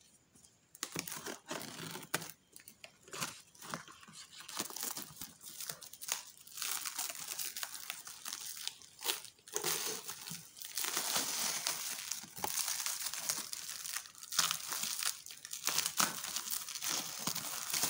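Black plastic parcel wrapping crinkling and tearing in irregular rustles as it is cut with a utility knife and pulled open by hand, getting busier in the second half.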